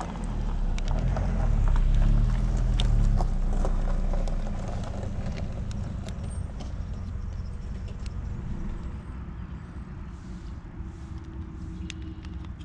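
A passing motor vehicle: a low rumble that swells over the first two seconds, then slowly fades away, with a few faint clicks over it.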